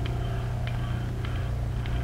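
Laboratory materials-testing machines running: a steady low hum with a light click about every two-thirds of a second.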